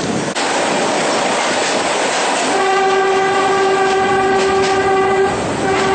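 Train horn sounding a long, steady blast from about two and a half seconds in, stopping just before the end and starting again right at the end, over the rushing and rattling of the moving train.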